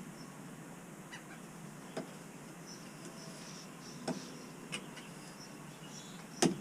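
Quiet steady background with a few light clicks and taps, the sharpest and loudest just before the end, with faint high chirps like distant birds.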